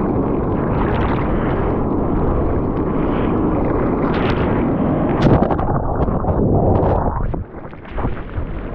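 Whitewater rushing and splashing over a surfboard's nose and the board-mounted action camera as it pushes through broken waves, with wind buffeting the microphone. The rush drops away suddenly for a moment near the end as the camera dips into the foam, then returns.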